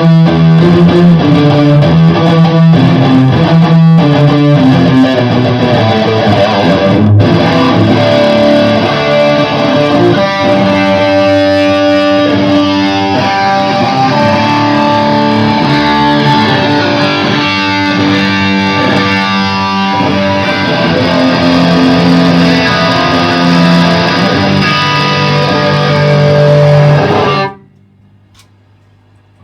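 Electric guitar played through an Orange Super Crush combo amplifier: a run of riffs and held notes, loud and full, that cuts off suddenly near the end.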